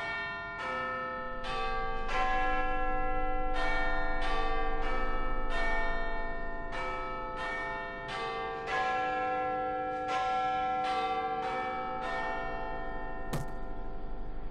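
Tuned bells chiming a slow melody, one note at a time in what look like groups of four, each note ringing on under the next, like a clock-tower chime. A single sharp click sounds near the end, over a steady low hum.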